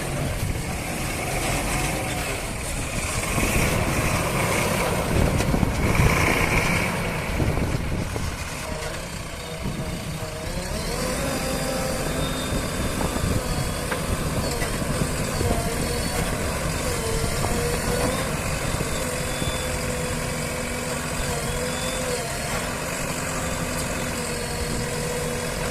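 Diesel engines of earthmoving vehicles working at a mud-loading site, louder and rougher for the first eight seconds or so, then settling to a steady running note.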